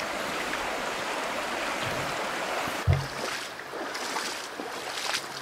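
Shallow river water rushing over rocks, a steady hiss of flowing water. About three seconds in there is a single low thump, after which the water is quieter and boots splash as a wader walks through the shallows.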